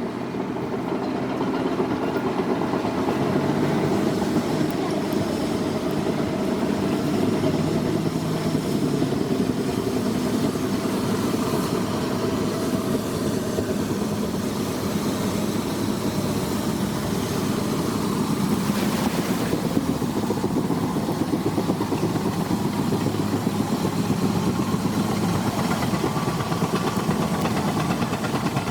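Heavy construction machine's engine running steadily with a continuous rumble.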